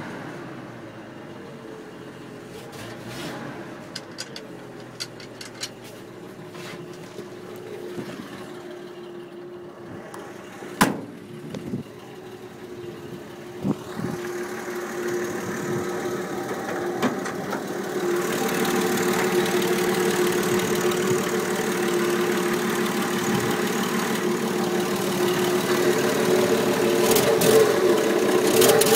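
1967 Ford F100 pickup's engine idling steadily, quieter at first from inside the cab and getting louder in the second half as the microphone reaches the open engine bay. Two sharp knocks come in the middle, a few seconds apart.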